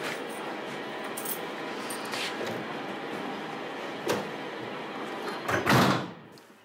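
Keys and lock rattling at a door that sticks, with a few sharp clicks, then a loud bang from the door near the end.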